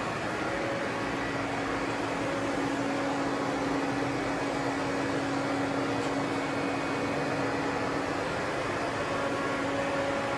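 Steady machine-shop hum: an even rushing noise with a low steady tone running under it, unchanging throughout.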